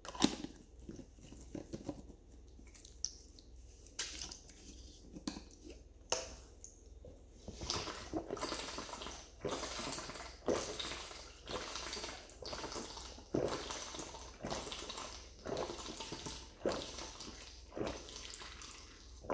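A few clicks and knocks as a plastic water bottle's cap is opened, then water being drunk from the tipped-up bottle in steady gulps, about one a second, for the last ten seconds or so.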